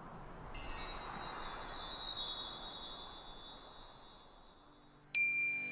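Logo-reveal sound effect: a soft rising whoosh, then about half a second in a bright shimmering chime that rings and slowly fades over a few seconds. Near the end a new held note comes in sharply.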